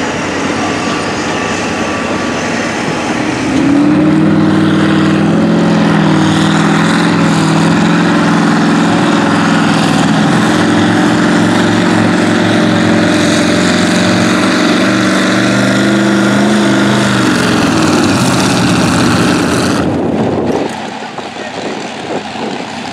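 Multi-engine modified pulling tractor at full throttle hauling the sled. The engines climb in pitch and loudness about three and a half seconds in, hold a loud, steady, many-toned note, then sag and drop away sharply about twenty seconds in as the pull ends.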